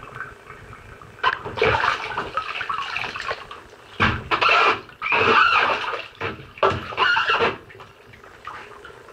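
Bathwater sloshing and splashing as booted, trousered legs are moved and lifted in a bathtub, in several loud bursts between about one and seven and a half seconds in.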